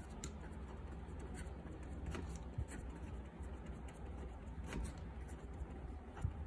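Cello Permaline fine-tip marker writing on paper, faint scratching strokes with a few light taps, over a steady low hum.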